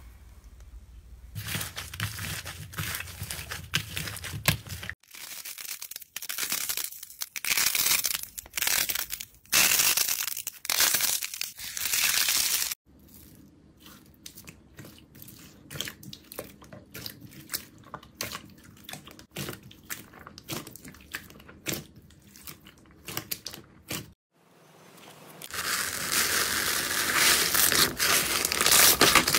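Hands squeezing and pressing slime in plastic tubs, including foam-bead slime: runs of crackling, crunching and sticky clicks and pops. The crackling turns dense and loud near the end.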